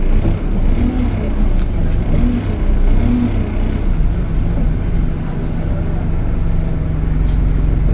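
Bus engine running as the bus drives, heard from inside the passenger saloon: a steady low drone, with a few light rattles.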